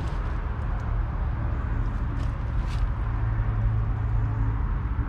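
John Deere 6600's 5.9-litre six-cylinder diesel engine idling with a steady low hum, a little stronger in the second half.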